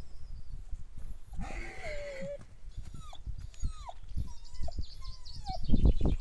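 A pet animal squeaking: a series of short, falling squeals, one longer one early on, then several quicker ones, with faint high chirps near the end and low rumbling noise underneath.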